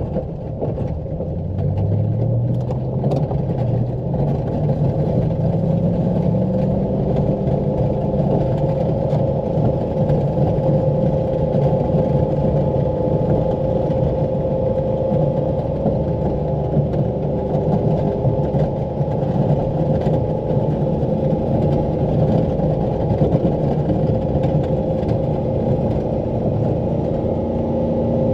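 Pickup truck engine heard from inside the cab, revving up a second or so in and then running steadily under load while the truck pushes heavy wet snow with a front plow in four-wheel-drive low.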